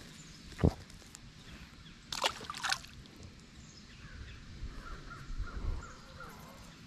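A crow cawing twice, two harsh calls about half a second apart some two seconds in, after a short thump near the start.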